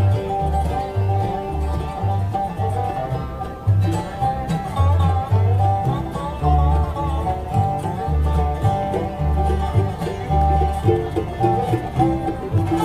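Acoustic bluegrass band playing an instrumental break with no singing: banjo picking over guitar, and a double bass playing steady notes about twice a second.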